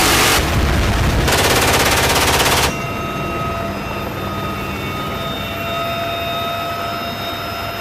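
Helicopter door-mounted machine gun firing rapid bursts: one ends just after the start, and a second runs about a second and a half. After that the UH-1Y Venom's cabin noise carries on, a steady rush with a few whining tones.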